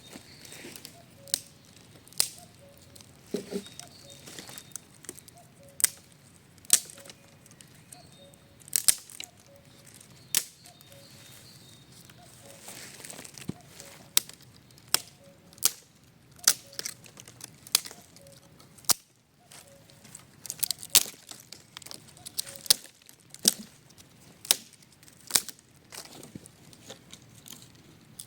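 Hands working at a camp: a run of irregular sharp snaps and clicks, roughly one every second, with crinkling and rustling between them.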